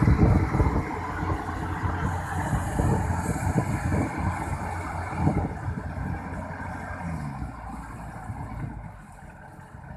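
Heavy machinery engine running hard. It is loudest in the first second, gives a short upward glide in pitch past the middle, and fades toward the end.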